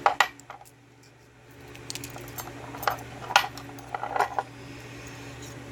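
Small metal parts of a six-pin Yale lock cylinder clicking and clinking as it is taken apart by hand. There is a quick cluster of sharp clicks at the start, then a few more about three and four seconds in, over a steady low hum.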